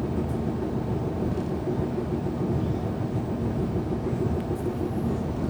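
Jayakarta passenger train running, a steady low rumble.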